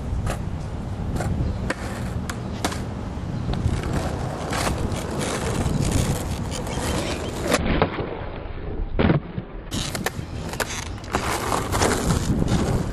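Skateboard wheels rolling over rough asphalt in a continuous gritty rumble, broken by repeated sharp clacks of the board against the ground.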